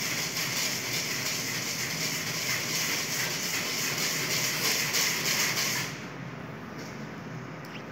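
A steady hiss that cuts off suddenly about six seconds in, leaving a quieter, lower steady background noise.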